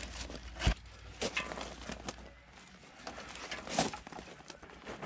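Irregular handling noise: rustling of plastic sheeting and rope with scattered knocks as hands work along the boat trailer. A sharp thump comes just under a second in and a smaller one near the four-second mark.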